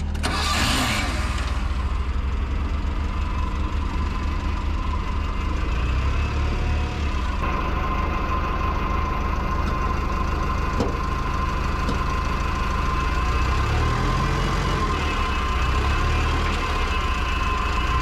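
Heavy equipment engine running steadily, with a short hissing scrape about a second in and a steady high whine joining about seven seconds in.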